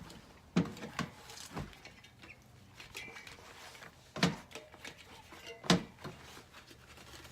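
Rubber tyre and inner tube being worked onto a BMX wheel rim by hand: a handful of sharp clicks and knocks, the loudest about four and six seconds in, over faint rubbing and handling noise.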